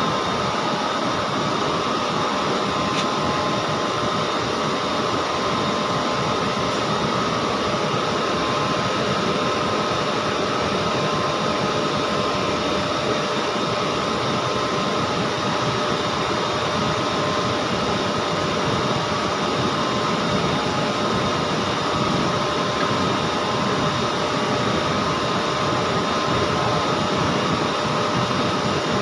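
TIG (argon) welding arc on SS310 stainless steel, a steady, unbroken hiss with faint steady tones in it.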